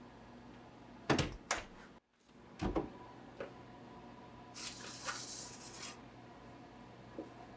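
A few sharp clunks and knocks of kitchen things being handled and set down, with a brief cut in the sound about two seconds in and a short rustling hiss later on.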